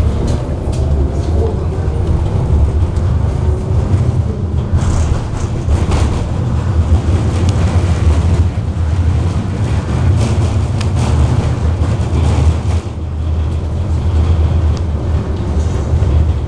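Inside a KTM-19 tram under way: a steady low running rumble from the wheels and drive, with a few short knocks and rattles scattered through it.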